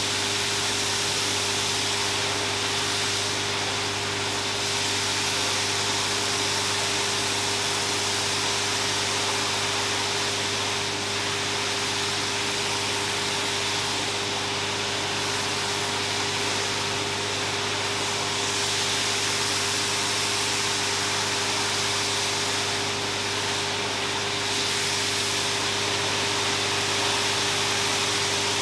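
Pressure-washer wand spraying water into a rug's pile: a steady hiss of spray over an even machine hum.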